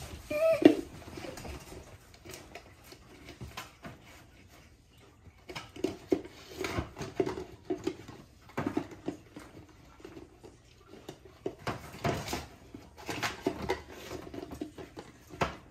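Great Pyrenees puppy licking and gnawing at a plastic peanut butter jar, with irregular wet smacking and the jar tapping and knocking on the crate floor, sparse at first and much busier from about the middle on. A short pitched squeak is heard right at the start.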